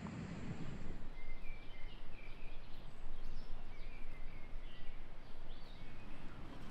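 Rural outdoor ambience with small birds chirping, many short calls scattered over a steady hiss of background noise. A low wind rumble on the microphone stops about a second in.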